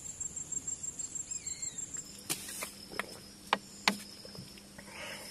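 Crickets chirping in a rapid, steady pulse. From about two seconds in, a handful of sharp clicks and knocks come through as gear is handled close by.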